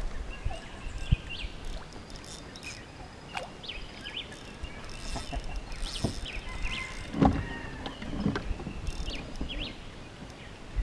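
Quiet outdoor ambience on a lake: scattered short bird chirps, with a few light knocks from the boat and fishing gear.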